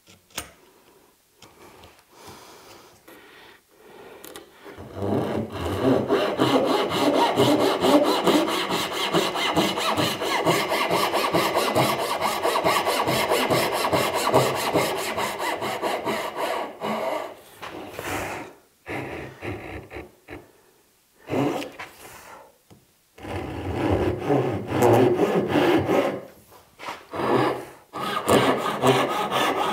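Handsaw cutting tenon shoulders by hand. After a few quiet seconds a long run of fast, even saw strokes starts about five seconds in, then breaks into several shorter bursts of strokes in the second half.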